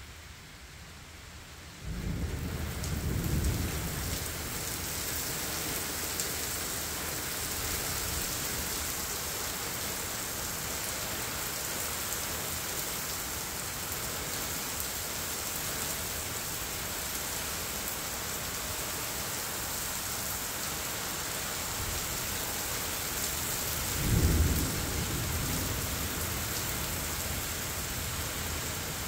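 Heavy rain pouring steadily during a severe thunderstorm. The rain noise comes up suddenly about two seconds in with a rumble of thunder, and a second, louder rumble of thunder comes near the end.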